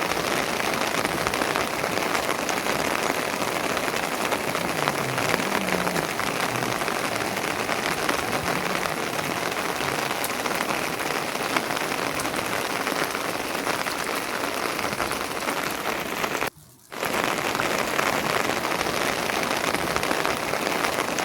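Steady rain falling on a surface, an even hiss that breaks off briefly about sixteen seconds in.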